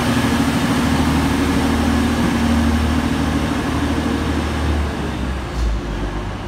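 Diesel engines of a Class 185 diesel multiple unit working under power as the train pulls away, the rumble fading as it draws off. A short low thump about five and a half seconds in.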